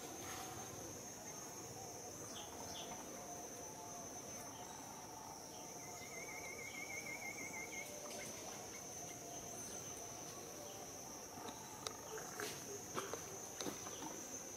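Insects buzzing steadily at a high pitch in the tree canopy. A short wavering call comes about six seconds in, and a few light clicks come near the end.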